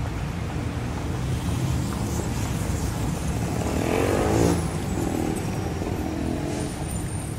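Steady low rumbling background noise, with a brief pitched sound rising and falling about four seconds in.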